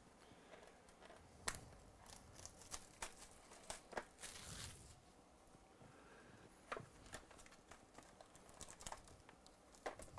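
Plastic shrink-wrap being torn and crinkled off a cardboard box of trading cards, then the box opened; faint scattered crackles and clicks, with a longer tear about four seconds in.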